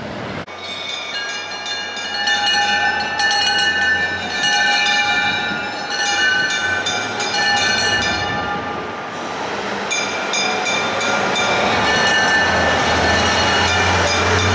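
Vintage fire engine bell being rung rapidly, strike after strike with a ringing tone. The ringing pauses briefly past the middle and then starts again, over a low engine hum that grows louder as the engine comes close near the end.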